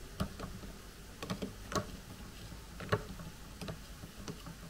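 A metal fork stirring sauce in a plastic food container, knocking against its sides and bottom in a scatter of light, irregular clicks.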